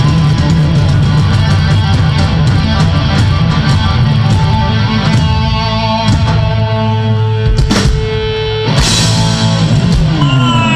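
Live band playing loud rock with electric guitar, bass and drums. In the second half the band holds a sustained chord, cut by a couple of hard hits, and a voice starts calling out at the very end.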